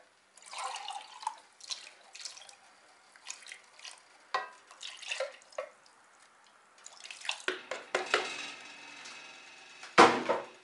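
Tomato-tinged rinse water pouring and dripping out of tin cans into a pot of tomatoes, with small splashes. A sharp knock about ten seconds in is the loudest sound.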